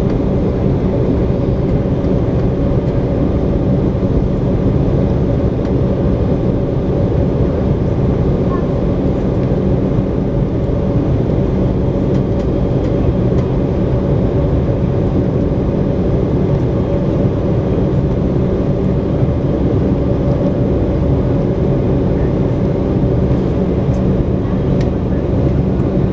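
Cabin noise of an Embraer 190 taxiing, heard from inside the cabin: its GE CF34-10E turbofan engines running steadily at taxi power. A loud, even drone with a few held tones, neither rising nor falling.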